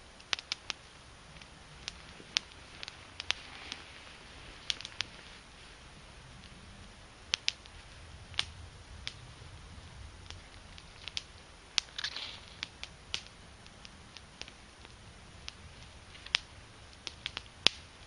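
Small fire of split Douglas fir kindling and shavings crackling, with sharp pops at irregular intervals over a soft hiss.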